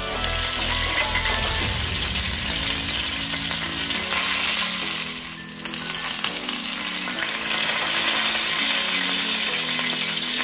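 Hot oil sizzling steadily around a whole flour-coated fish shallow-frying in a stainless steel pan, briefly dropping away about halfway through.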